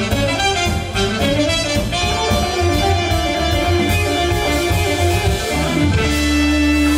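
Live band playing fast, busy instrumental music; about six seconds in it switches to one long held chord over a steady low note.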